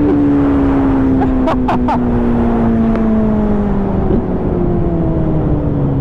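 Superbike engine running steadily under way, its pitch sliding slowly down as the revs ease off, over heavy wind rush on the rider's microphone.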